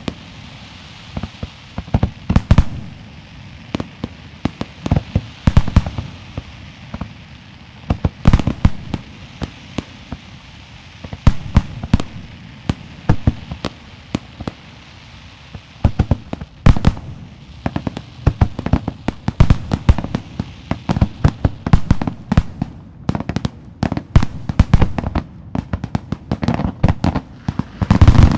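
Fireworks show: a run of sharp bangs at irregular intervals over a low rumble. The bangs come faster and denser near the end as the grand finale begins.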